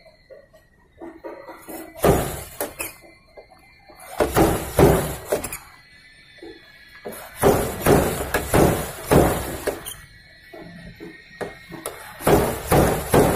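Dented sheet-metal car body panel being pushed and rubbed by hand, giving four bursts of thunks and squeaks, each a second or two long.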